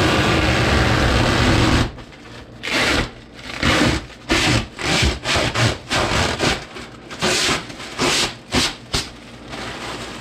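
Clear protective plastic film being peeled off a camper door's window. The film gives a continuous ripping rustle for about two seconds, then a string of short crinkling rustles as the loose sheet is pulled free and bunched up.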